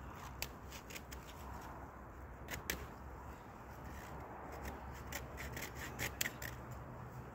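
Scattered small sharp clicks and snaps of twigs and pine branches being handled or broken, coming in clusters, over a steady low hum.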